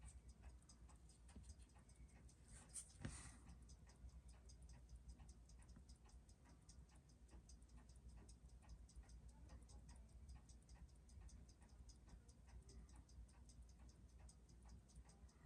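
Faint, even ticking of a freshly serviced Seiko 6139 automatic chronograph movement running on a timegrapher, about six ticks a second (its 21,600 beats-per-hour rate). There is a brief soft knock about three seconds in.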